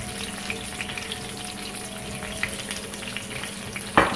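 Marinated surmai (king mackerel) steaks sizzling in shallow oil in a frying pan, a steady crackle with scattered small pops. A sharp knock near the end.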